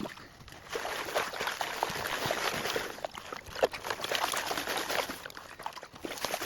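Gold pan being shaken and swirled by hand, with water sloshing and gravel rattling against the pan in many small clicks, as the material is washed out during panning.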